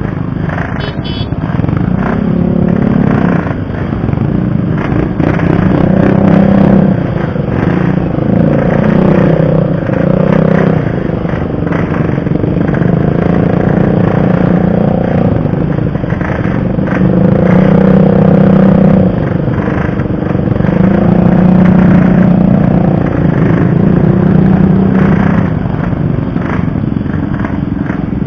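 Yamaha RX-King 135 cc two-stroke single-cylinder motorcycle engine under way, revving up and easing off several times, its pitch rising and falling with the throttle.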